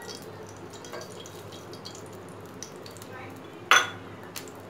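Kitchen clatter over a low steady hum: a few faint clicks, then one sharp clink of kitchenware near the end. The oil in the pan is not sizzling yet.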